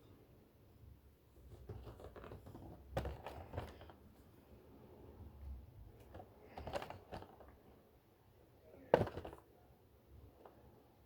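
Handling noise from unboxing a Funko Pop: scattered rustling and light knocks of packaging being handled, with one sharp knock about nine seconds in.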